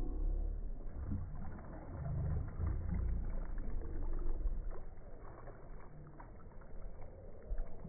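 Water lapping and swishing against the hull of a moving boat, with an uneven low rumble of wind on the microphone.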